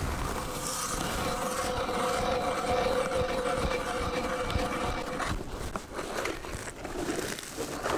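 Ice auger boring a hole through sea ice: a steady grinding with a held tone from about a second in, stopping just after five seconds in as the auger breaks through.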